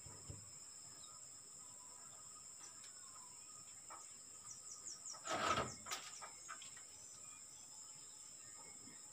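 Steady high-pitched drone of insects in the background, with a quick run of bird chirps in the middle and a short scraping noise, the loudest sound, about five and a half seconds in.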